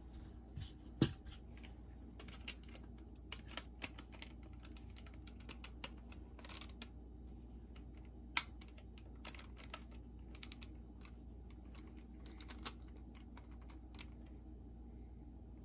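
Irregular light clicks and taps from small plastic parts being handled, with two sharper, louder clicks about a second in and about eight seconds in.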